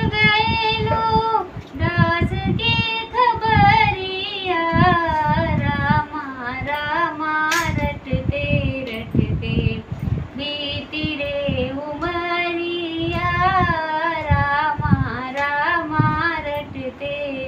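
A woman sings a Hindi devotional bhajan solo, in a wavering, ornamented melody. There is one brief sharp click partway through.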